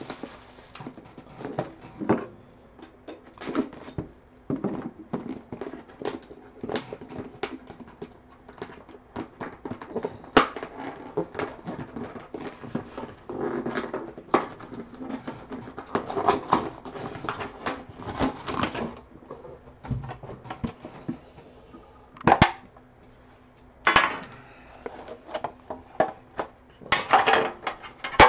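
Plastic shrink wrap crinkling as it is torn off a sealed hockey card box and crumpled, then the box being handled and opened, with irregular rustling and a few sharp knocks on the desk.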